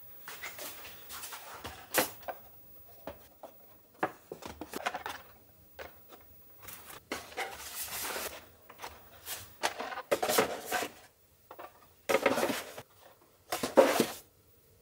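Cardboard tea boxes being handled: irregular taps, knocks and rustles as they are picked up and set down, with two louder scraping sounds near the end as they are slid into place.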